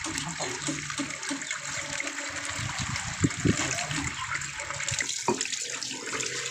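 Running water splashing steadily over a shock absorber's piston rod and valve parts as they are rinsed by hand, with a few sharp knocks of parts about three seconds in and again near five seconds.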